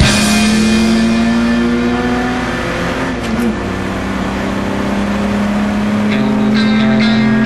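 Engine of an old Jaguar racing saloon, heard from inside the car, running at steady high revs with a slight dip in pitch about three seconds in. Near the end the level rises a little and a sharp rhythmic sound returns.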